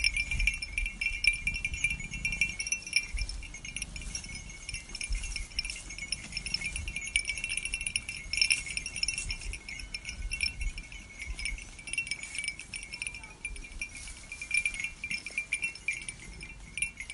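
Many small metal bells jangling continuously and irregularly, as from bells worn by a grazing flock of sheep, over an irregular low rumble.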